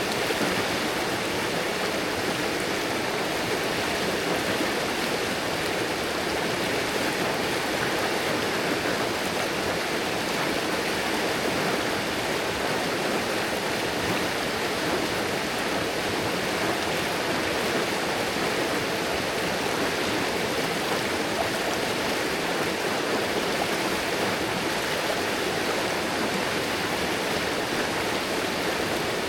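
River water rushing and burbling over rocks, a steady even rush with no pauses.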